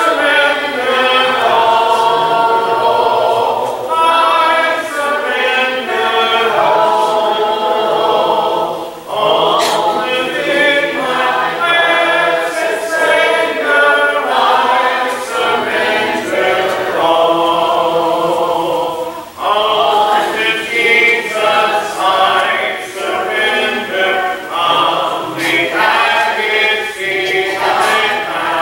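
Church congregation singing a hymn a cappella, many unaccompanied voices holding sustained notes in phrase after phrase, with short breaks between lines.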